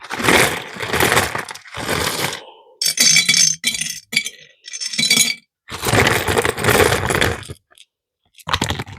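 Small hard jewelry charms and beads clinking and rattling together as they are handled and poured, in about six separate bursts with a short pause near the end.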